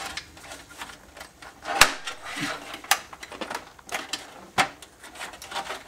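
Plastic retaining clips of a CoolerMaster CM690 II case's front panel being pried up by hand: a few sharp plastic clicks amid scraping and rustling, the loudest about two seconds in.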